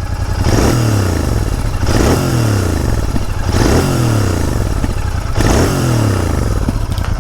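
Stock Royal Enfield Continental GT 650's 648 cc parallel-twin engine on its stock exhaust, revved four times from idle while standing: each blip rises sharply and then falls back to idle.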